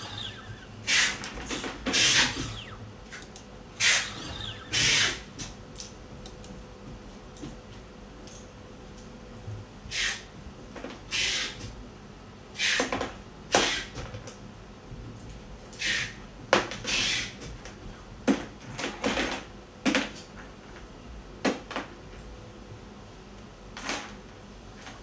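Scattered, irregular clicks and taps as multimeter test probes and wires are handled against a wiring-harness connector, with a faint steady tone underneath.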